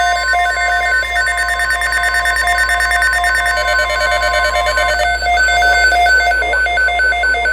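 NOAA Weather Radio alert: rapid electronic alarm beeps repeating without pause, over the steady 1050 Hz weather alert tone that cuts off about five seconds in. The tone signals that a weather watch or warning message follows.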